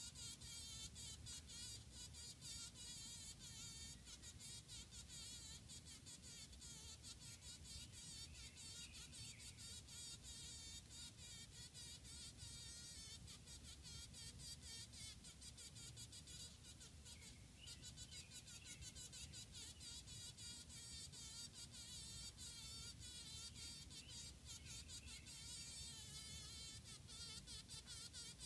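Faint, rapid ticking buzz of a honey bee struggling against a spider's attack while caught in its web.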